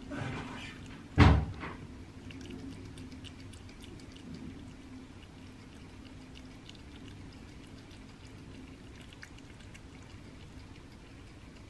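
Cat eating thawed raw rabbit meat: wet licking and chewing, with many small clicks. One loud thump about a second in.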